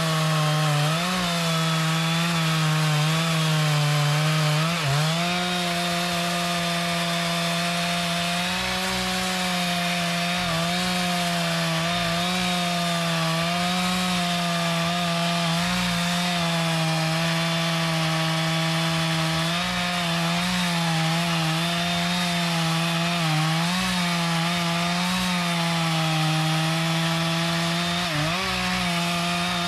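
Two-stroke chainsaw running at high revs, cutting into a mahogany trunk. The engine note holds steady under load and sags briefly about five seconds in and again near the end.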